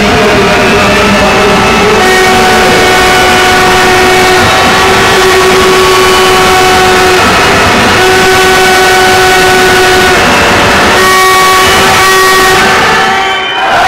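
Many spectators' handheld horns sounding long held notes together over a loud sports-hall crowd, the tones breaking off briefly now and then and the din dropping away near the end.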